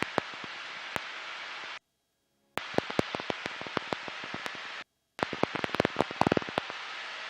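Steady hiss with frequent sharp crackles and clicks on the helicopter tour's intercom audio line. It cuts out to dead silence twice, a little under a second about two seconds in and briefly about five seconds in.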